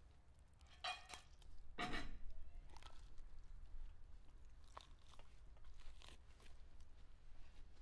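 Whole roast chicken being torn apart by hand: skin and joints tearing in several short bursts, the loudest about two seconds in.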